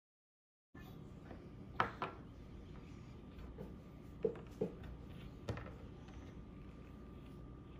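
Small plastic doll pieces handled on a tabletop: a handful of light clicks and taps over faint room tone with a thin steady whine. The first second is silent.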